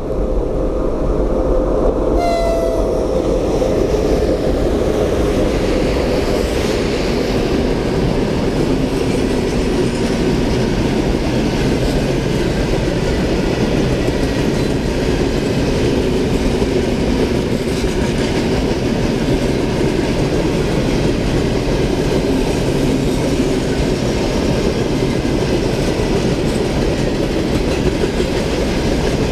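A train passing at speed, its horn sounding briefly about two seconds in, followed by the steady rumble and clatter of the wagons' wheels on the rails.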